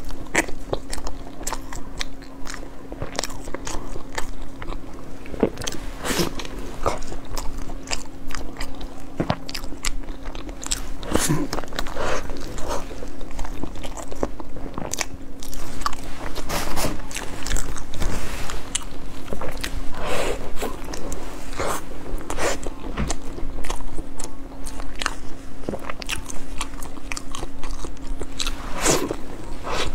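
Close-miked biting and chewing of a soft seaweed-wrapped roll, with frequent wet mouth clicks and smacks throughout. A faint steady low hum lies underneath.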